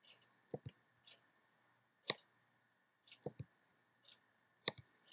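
Quiet computer mouse button clicks, a handful of sharp clicks spread a second or so apart, several in quick press-and-release pairs, as node wires are dragged and dropped.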